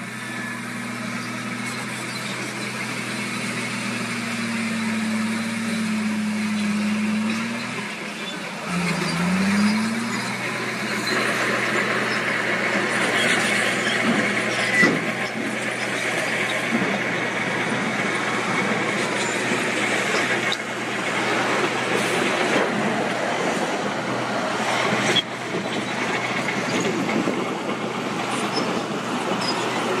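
Diesel dump truck engines running while the beds are raised to tip soil: a steady engine drone, a brief dip and a rising rev about nine seconds in, then rougher, noisier running with a few sharp clicks.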